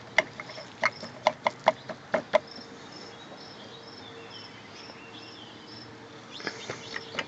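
A run of sharp clicks and taps, close together in the first two seconds or so and a few more near the end, from bread being handled at a bird-feeding board. Behind them a faint high chirp repeats steadily about three times a second.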